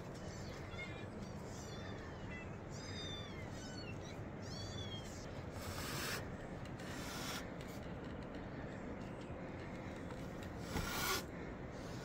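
Calico mother cat meowing loudly three times in the second half, mouth wide open. Small birds chirp in the first few seconds.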